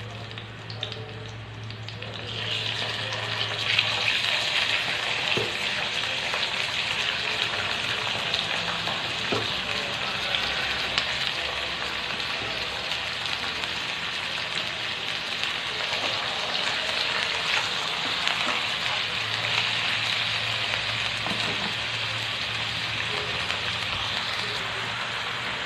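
Sliced ginger and raw chicken pieces frying in hot oil in a wok: a steady sizzle that grows much louder about two seconds in, as the chicken goes into the oil.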